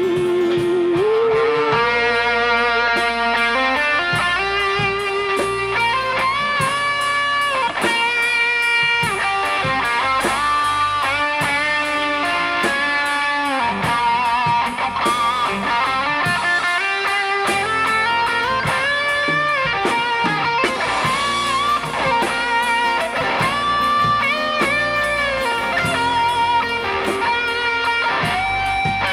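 Live worship band playing an instrumental passage: an electric guitar carries a melodic lead with bending notes over acoustic guitar, bass guitar and drums.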